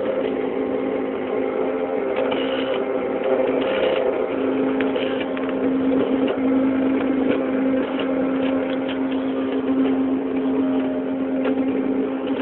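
CNC machine running: a steady motor hum with a constant tone, over which light clicks and ticks come and go.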